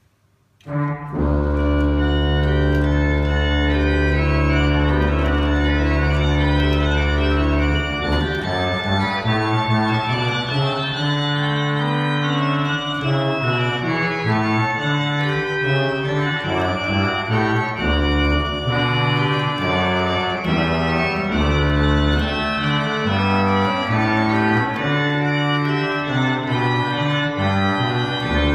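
Pipe organ playing a Baroque chorale prelude. A full chord with a long-held deep bass note sounds from about a second in, and from about eight seconds in the parts begin moving over a changing bass line.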